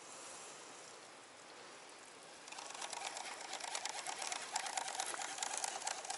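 Fishing reel cranked fast, a rapid whirring tick of the gears with a faint whine, starting about two and a half seconds in.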